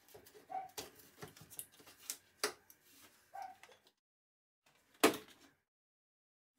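Handling noises as a jigsaw and its plywood bevel-cutting jig are lifted off a wooden circle: scattered light clicks, rubs and small knocks, then one sharp knock about five seconds in.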